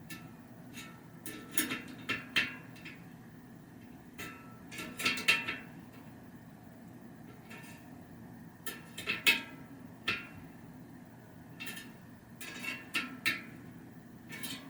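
Spoke key working the spoke nipples of a bicycle wheel being trued: clusters of short metallic clicks and clinks come in little groups every few seconds as each nipple is given a quarter turn, tightening the spokes on one side and loosening them on the other to pull the rim straight.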